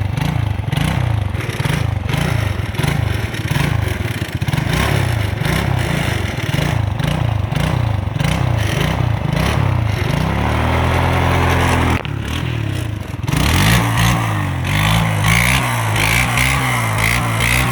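ATV engine revving up and down in quick pulses about twice a second, then holding a steady note. It drops away briefly about twelve seconds in, then runs again with a wavering pitch.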